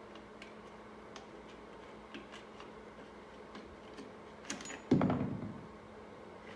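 Light metallic clicks and taps of a jammed part being wiggled on a Honda 70 pit bike engine during a top-end teardown, then one loud metal clunk about five seconds in that rings briefly.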